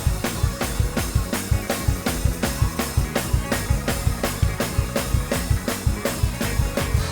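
Drum kit and keyboard playing a fast gospel praise-break groove: even, driving strokes at about four a second with heavy bass-drum hits under the keys.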